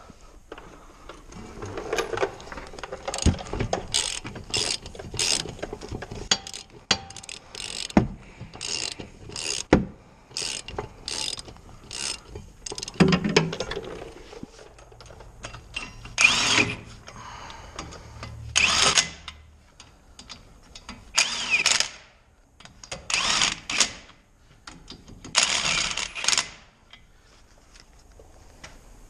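Hand socket ratchet clicking in repeated strokes as the brake caliper bolts are run down: quick short strokes at first, then five longer ones about two seconds apart.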